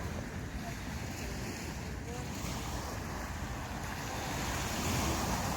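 Sea waves washing onto the beach, a steady rushing surf that swells as a wave comes in near the end. Wind rumbles on the microphone underneath.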